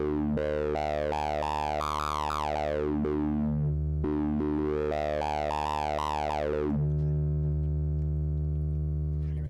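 Akai Rhythm Wolf analog synth holding a steady low drone while its tone sweeps up and down about once a second. The sweeping stops about seven seconds in, leaving the plain drone, which cuts off suddenly near the end.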